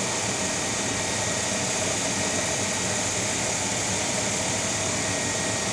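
Cue lathe running at a steady speed, spinning a cue shaft: an even motor whir with a faint steady whine.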